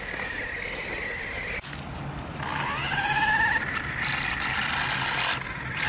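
Small 1/16-scale electric RC car running on pavement, its motor and gears whining. A steady high whine breaks off about one and a half seconds in, then a wavering whine rises and falls as the car speeds up and slows down. The driver thinks the whining rear gearbox is broken.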